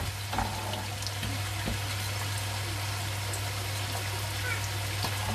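Ghee melting in a nonstick frying pan on a gas hob: a soft, steady hiss with a few faint ticks of the spoon and a low hum underneath.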